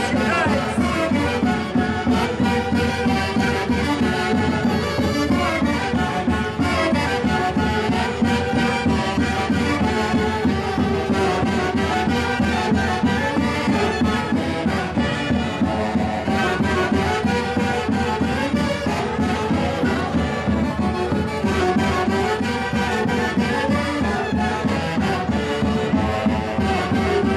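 Live Andean Santiago music from a band led by saxophones, playing a continuous melody over a steady drum beat.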